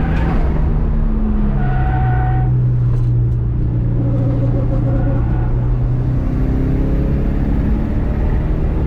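Subaru Impreza GC8's EJ207 turbocharged 2.0-litre flat-four running hard on a race circuit. Its note drops about a second and a half in, holds steady for a few seconds, then climbs again from about six seconds as the car accelerates.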